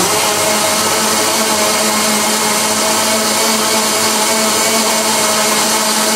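Countertop blender motor running steadily at one constant speed, re-blending a strawberry gelatin mixture that had separated into foam and liquid.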